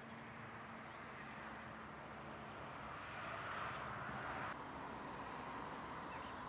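Faint, steady outdoor background noise, an even hiss with a weak low hum. It swells slightly and then cuts off abruptly about four and a half seconds in.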